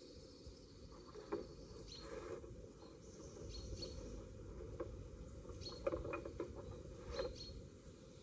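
Faint, irregular small clicks, knocks and rustling of hands working with small parts at the base of a metal lamp post, with a few short bird chirps in the background.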